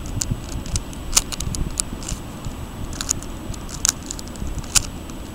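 Plastic stickerless 3x3 speed cube clicking as its layers are turned one-handed: an irregular run of sharp clicks with short pauses between turns.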